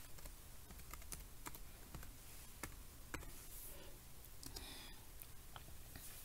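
Keystrokes on a Lenovo ThinkPad X230 laptop keyboard as a login password is typed: about a dozen light clicks at an uneven pace.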